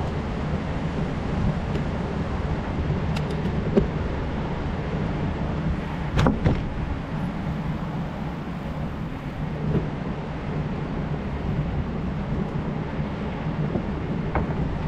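Steady wind and road noise while riding a bicycle, with a low rumble. There are brief knocks about four and six seconds in, the second louder.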